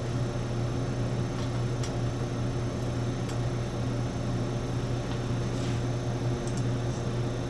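Steady low hum of running laboratory equipment, with a few faint clicks and taps as a cable connector is handled.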